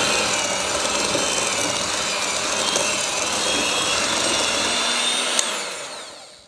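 Electric hand mixer running steadily with its beaters in a stainless steel bowl of creamed butter and sugar. A click comes about five seconds in, then the motor winds down and stops near the end.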